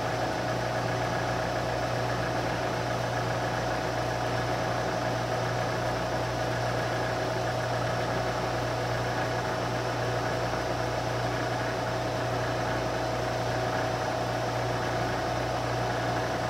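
Vertical knee mill running with its spindle turning an end mill, a steady hum at constant pitch while the cutter is brought down to touch off the top of the brass stock.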